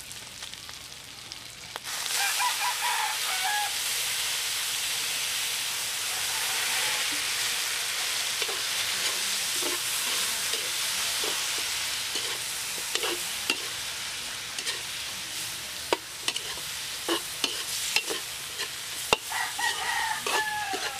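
Fish sauce hitting a hot steel wok of fried pork belly sets off a sudden loud sizzle about two seconds in. The sizzle runs on while a metal spatula clinks and scrapes against the wok. A rooster crows twice, once near the start and once near the end.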